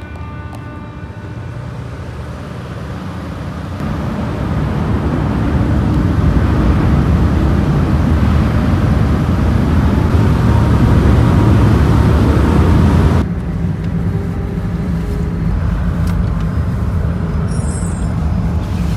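Steady low rumble of a car ferry underway, engine and wind noise together. It grows louder about four seconds in and drops suddenly about thirteen seconds in.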